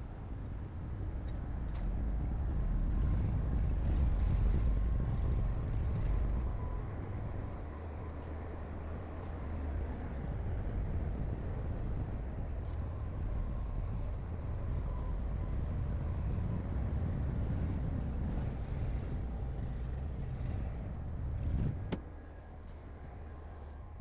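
Heavy diesel earthmoving machinery running under load with a low rumble, swelling a few seconds in and falling off sharply near the end.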